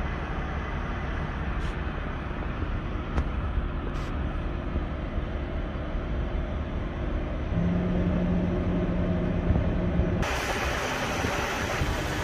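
Semi truck's diesel engine idling with a steady low rumble. A little past ten seconds in, the sound changes abruptly to a louder, broad hiss.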